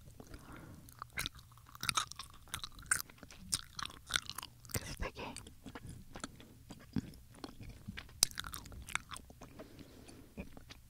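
Haribo gummy bears being chewed close to the microphone: a steady run of irregular sticky mouth smacks and clicks.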